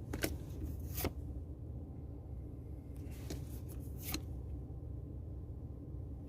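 Pokémon trading cards being handled, with a few short crisp clicks and rustles as cards are slid and flicked over, against a steady low hum.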